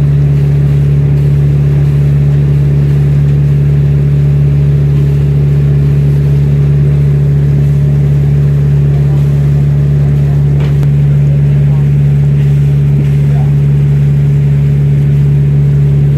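Tour boat's engine running at a steady cruise, a loud, even drone heard from on board.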